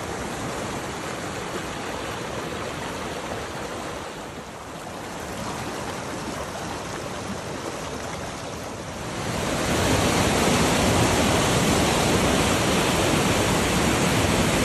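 Snowmelt mountain stream rushing over rocks, a steady roar of water that gets clearly louder about nine seconds in, where it tumbles down a rocky cascade.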